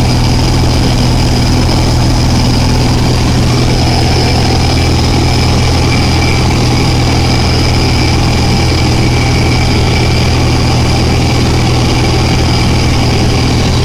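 Light aircraft's engine and propeller running steadily in flight, heard from inside the cabin, with a thin steady whine above the low engine note.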